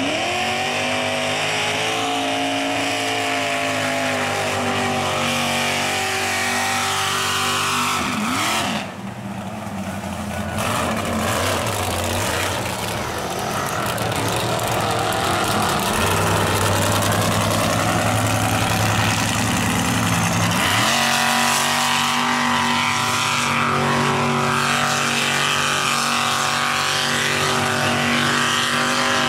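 Engines of lifted Ford mud trucks running at high revs as they drive through a mud pit. Revs climb at the start, drop off briefly about eight seconds in, and climb hard again about twenty-one seconds in.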